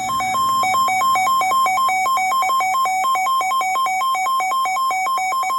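Weather radio emergency alert data tones: a loud electronic signal that switches rapidly and irregularly between two pitches, one high and one a little lower, like a modem-style alert header.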